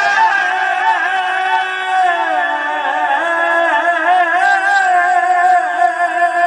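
Male voice singing a manqabat line as one long, wavering, ornamented held note, with a steady lower tone beneath.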